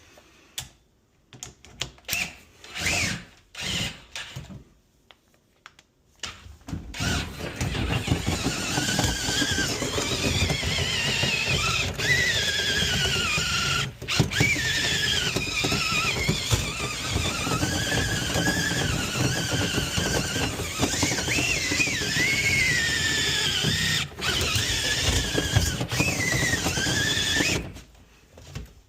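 A few short knocks and clatters, then a power drill spinning a rotary brush in a dryer vent duct. It runs steadily for about twenty seconds with a wavering squeal, then stops.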